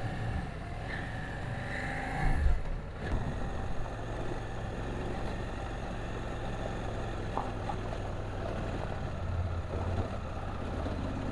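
KTM 790 Adventure's parallel-twin engine running as the motorcycle is ridden off-road, with one brief louder noise about two seconds in.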